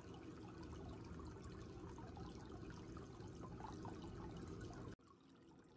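Water trickling and lapping in a shallow turtle tub, with small splashy flecks throughout. It drops abruptly to a quieter steady trickle near the end.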